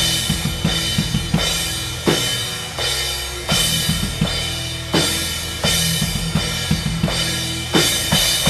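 Live band playing, heard close to the drum kit: kick drum and snare hits with crash cymbals struck every second or two, over sustained electric guitar and bass notes.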